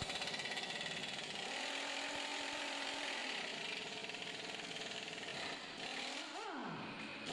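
Pneumatic impact wrench hammering in a fast, steady rattle on a lower engine mount bolt. Near the end a wavering tone glides down and back up.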